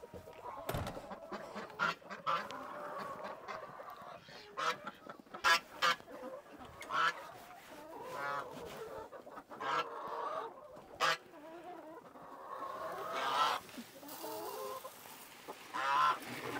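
A mixed flock of domestic poultry calling again and again: geese honking and chickens clucking, with louder single calls now and then.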